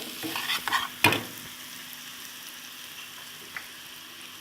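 Minced garlic frying in ghee in a pan, sizzling steadily while a spoon stirs and scrapes against the pan. There is a sharp knock about a second in, after which the stirring stops and a quieter sizzle goes on.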